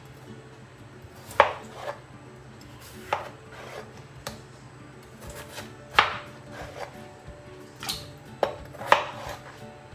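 Chef's knife slicing through peeled potatoes and knocking on a plastic cutting board: about seven sharp knocks, unevenly spaced.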